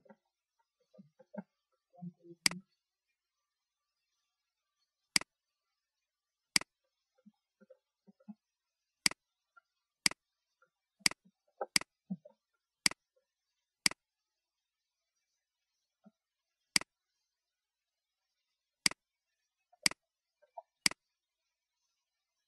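Computer mouse clicking: about a dozen single, sharp clicks spaced irregularly a second or more apart, with faint soft handling sounds between them.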